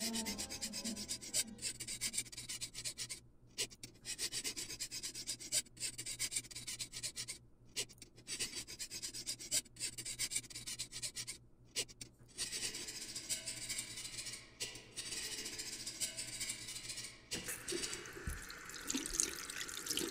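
Small stiff-bristled brush scrubbing old paint off a diecast metal toy car body, in quick back-and-forth strokes with a few short pauses. About three quarters of the way through it gives way to liquid sloshing as the body is rinsed in a tub.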